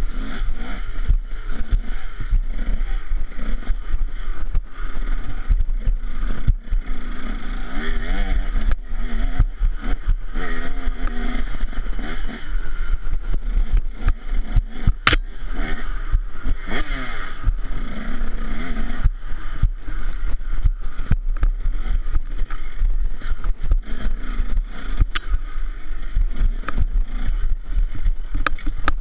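KTM 150 SX two-stroke dirt bike engine running hard, its pitch rising and falling as the throttle is worked. Short knocks and rattles come from the bike bouncing over the rough trail, with a constant low rumble of wind buffeting the microphone.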